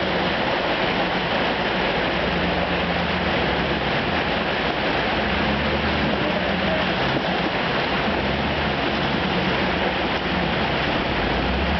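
Rushing creek water pouring over rocks, steady and loud, with a Chevrolet pickup truck's engine running low underneath as the truck crawls through the streambed.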